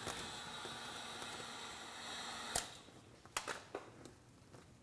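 Heat gun blowing steadily with a whining tone, warming the vinyl wrap to soften it so it can be stretched. It is switched off with a click about two and a half seconds in, and a few light clicks follow.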